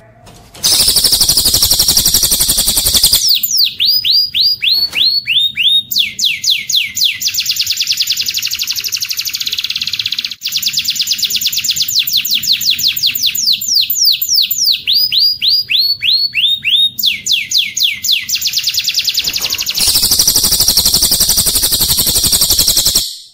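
Recorded cililin and canary song spliced together for bird training. A dense, high buzzy trill starts about a second in. It gives way to long runs of quick downward-sweeping whistles, repeated several times a second. Another buzzy trill follows near the end and cuts off suddenly.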